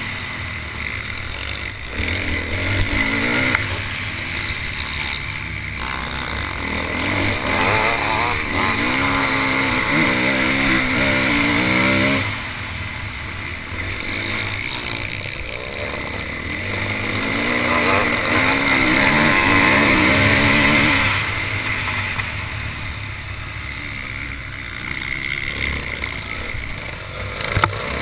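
Motocross bike engine heard close up through a bike-mounted camera, revving hard under racing throttle: the pitch climbs twice through the gears, once about a third of the way in and again past the middle, and drops off between.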